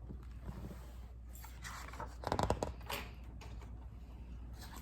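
A picture-book page being turned: a brief papery rustle about halfway through, amid faint handling noise.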